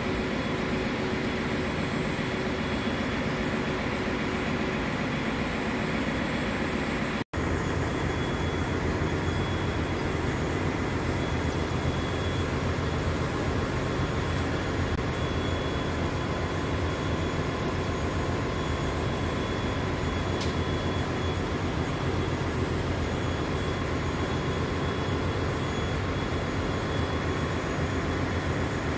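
Ship's engine-room machinery running: a loud, steady drone with faint constant whines on top. It cuts out for an instant about seven seconds in.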